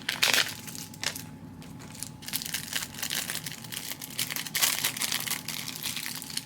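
Crinkling and rustling of craft supplies or their packaging being handled, with irregular small crackles and clicks.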